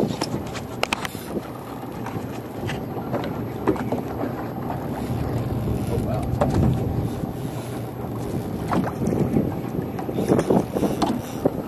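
Wind buffeting the microphone on an open boat at sea, a steady rough rumble, with scattered sharp clicks and knocks, several of them in the first second.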